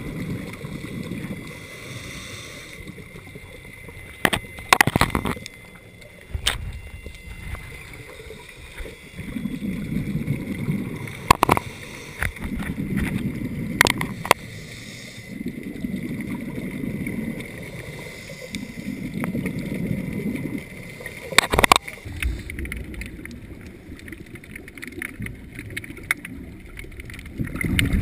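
Scuba diver's regulator underwater: exhaled bubbles rise in rounds, each about two seconds long and about three seconds apart. A few sharp knocks are heard now and then.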